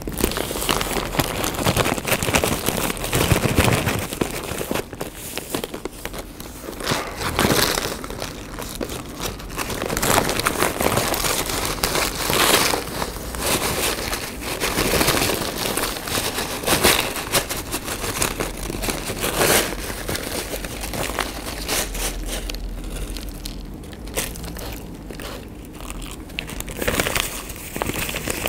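Oil-stained brown paper packet being opened, shaken out and handled, its paper crinkling and crackling in a long run of irregular rustles.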